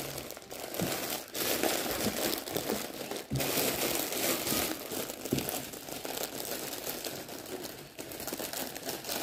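Plastic packaging crinkling and rustling continuously as a cross-stitch kit and its bundle of embroidery floss are handled, with a few light knocks.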